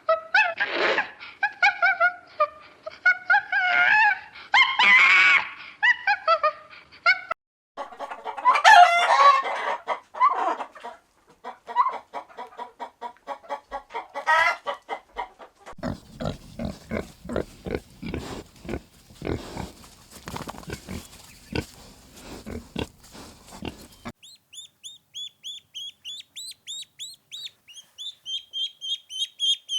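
A run of farm-animal calls, chiefly chickens clucking and calling in varied, bending cries, then a stretch of rapid short pulses. Over the last several seconds come quick, high, repeated peeps like chicks or small birds.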